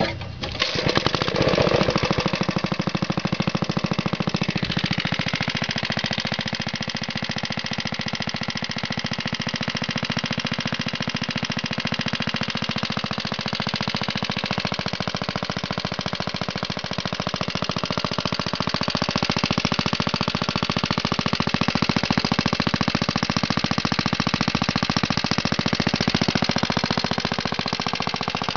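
Clinton single-cylinder small engine catching about a second in after a pull on its recoil starter, then running steadily with rapid, even firing pulses.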